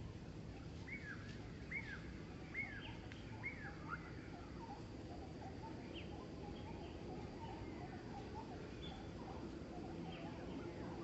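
Short, high animal chirps over a steady low outdoor background: four falling chirps close together about a second in, then fainter chirping.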